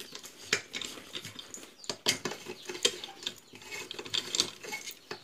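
A metal wrench clicking and scraping on the steel housing bolts of an Anauger vibrating submersible pump as the bolts are tightened: a few sharp metallic clicks at irregular intervals, with lighter ticks and scrapes between them.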